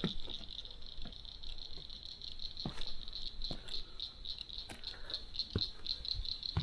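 Scattered light knocks and rattles of rotten boardwalk timber being dug and picked at, over a steady, pulsing, high-pitched insect chorus.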